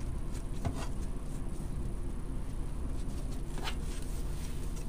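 Steady low room hum, with two faint brief rustles of hands handling wreath materials (pipe cleaners, mesh and ribbon), about two-thirds of a second and three and a half seconds in.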